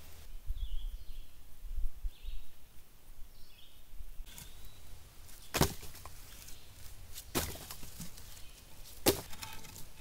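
Wooden sticks clacking together as they are lifted off a kiln mouth and set aside. There are three sharp knocks, each roughly a second and a half to two seconds apart, in the second half. A few faint bird chirps come earlier.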